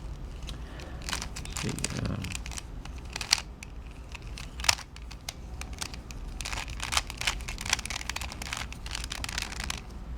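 Plastic layers of a twisted Rubik's Cube-style puzzle being turned by hand: irregular runs of quick clicks and rasps, with two sharper clacks about three and five seconds in.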